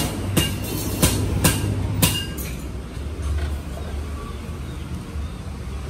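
Four sharp knocks about half a second apart, then a steady low engine rumble.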